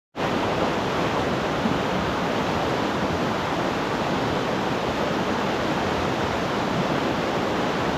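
Fast mountain river rushing: a loud, steady wash of running water.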